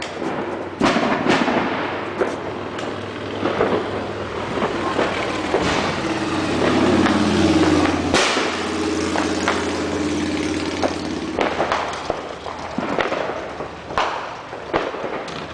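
Neighborhood fireworks going off on all sides: many sharp bangs and pops, some distant, the loudest crack about eight seconds in. In the middle a drawn-out sound with sliding pitch and a low hum runs under the bangs for several seconds.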